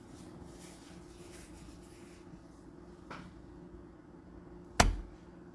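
Quiet room tone with a steady low hum, broken by a faint tap about three seconds in and one sharp knock near the end.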